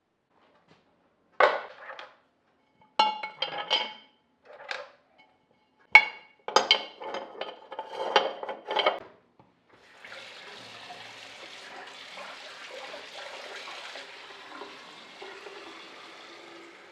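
A series of hard clinks and knocks, like glass or ceramic being handled and set down, then from about ten seconds in a steady stream of water running from a tap.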